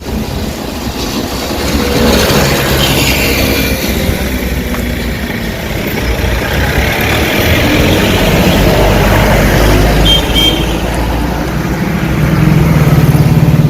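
Road traffic: motor vehicle engines running and passing in a loud, continuous rumble, with a short high beep about ten seconds in.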